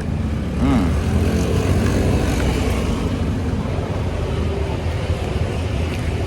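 Steady rumble of road traffic, with engines running past.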